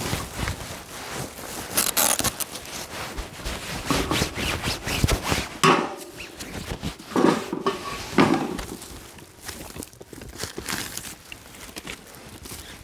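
Hands-on handling noise: a large woven sack rustling, and wood knocking as it is put into a small metal fire pit, with several louder clunks in the middle.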